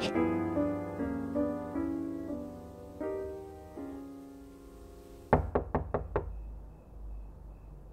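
Soft melodic music fades away, then about five quick, sharp knocks on a door a little past the middle.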